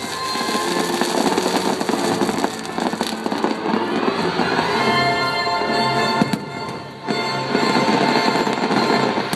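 Fireworks crackling and popping in quick succession over the show's music soundtrack, with a short lull just before 7 s.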